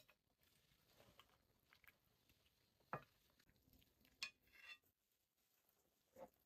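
A ladle clinking and scraping against a metal soup pot as soup is scooped into a bowl: a few faint, separate clinks, the sharpest about three seconds in.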